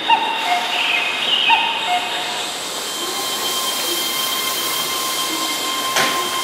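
Keihan 13000-series electric commuter train pulling away from the platform: steady running noise with a thin, steady whine from about three seconds in, and a single sharp knock near the end.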